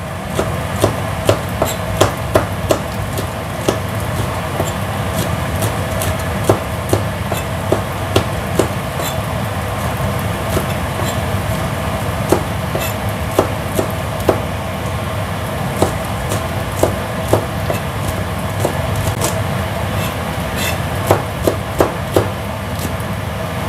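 Kitchen knife slicing small chilies on a cutting board: sharp, irregular taps of the blade hitting the board, about one a second, over a steady background hum.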